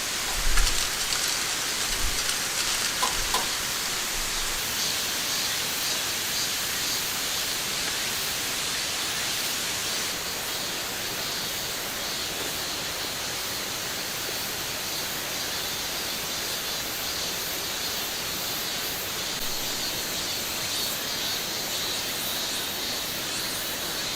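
Steady rain falling, an even hiss with no breaks. A few low thumps come in the first two seconds, the strongest about half a second in.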